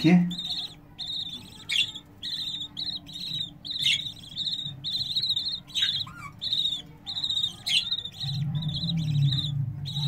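Budgerigar chicks in a clay pot nest box cheeping in a fast, steady run of short high calls, about three a second. A few sharper falling calls cut in, and a low hum joins near the end.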